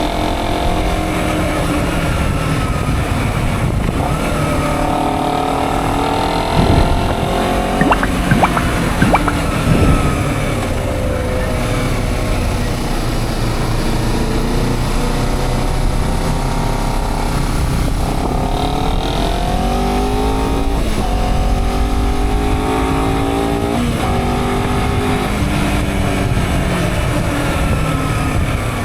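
Honda CBR 250 RR motorcycle engine running and revving. Its pitch rises and falls repeatedly, climbing in steps with sudden drops, as it is ridden through the gears. A few sharp cracks come about seven to ten seconds in.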